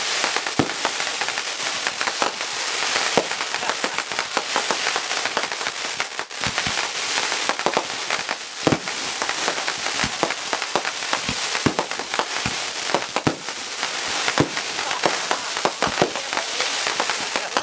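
Consumer fireworks going off several at once: a continuous hiss and crackle from ground-level fountains and rising shots, with many sharp bangs and cracks throughout.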